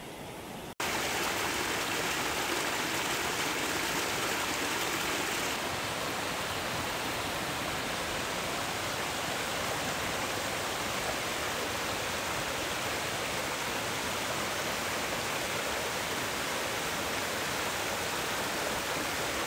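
Creek water rushing over rocks and small cascades, a steady rush that starts abruptly a little under a second in.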